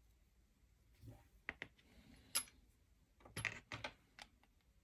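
Faint clicks and taps of small plastic and metal car parts and a tool being handled during assembly of a Mini-Z rear pod and shock. There are a few scattered clicks about a second in, one sharper click midway, and a quick cluster of clicks around three and a half seconds in.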